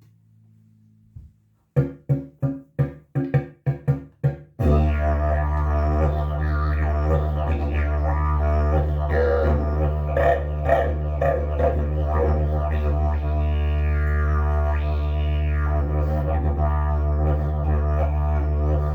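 Agave slide didgeridoo being played: a quick run of short, punchy toots, then from about four and a half seconds in a steady, loud drone whose overtones shift as the player shapes it.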